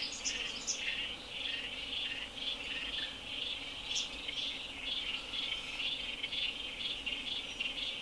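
A chorus of small calling animals, frogs or insects from the dam's edge, keeping up a steady run of pulsed chirps, a few to the second, with a few higher bird chirps in the first second.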